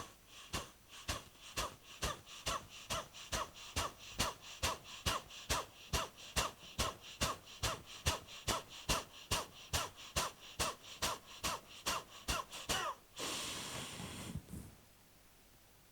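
Kapalbhati breathing at fast pace: a long, even run of sharp, forceful exhalations through the nose, driven by the abdomen, about three a second, then one longer breath near the end.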